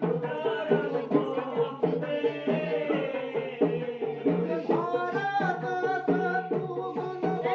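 Folk-style music with a steady hand-drum beat under a sliding melody.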